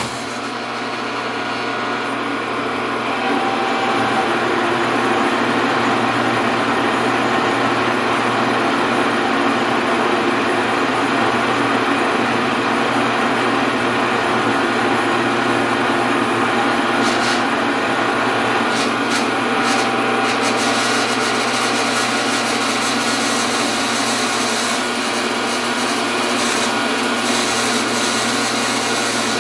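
A large geared-head metal lathe starting and running, its motor and headstock gears making a steady mechanical whine. It comes up to speed over the first few seconds, with a few short clicks about two-thirds of the way in.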